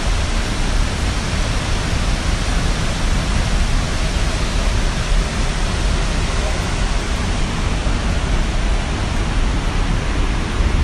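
Loud, steady rushing noise with a deep, unsteady rumble underneath.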